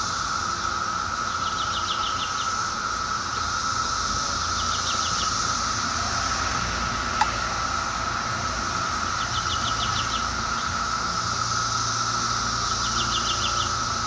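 Steady chorus of Brood X periodical cicadas, a continuous droning hum at one pitch. Four short runs of rapid ticks come through it, and there is a single sharp click just past halfway.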